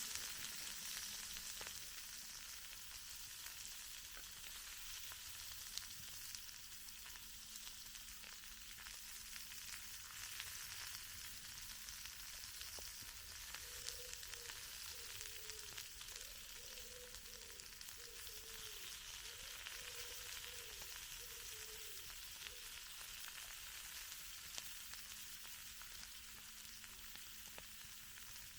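Food frying over a campfire: a steady, fairly quiet sizzle with small crackles. A faint wavering tone comes and goes through the middle.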